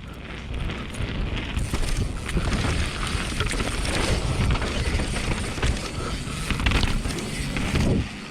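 Transition TR11 downhill mountain bike being ridden over rough ground: tyres rolling, the bike rattling with many small knocks, and wind buffeting the microphone. The noise builds about a second in and drops off sharply near the end.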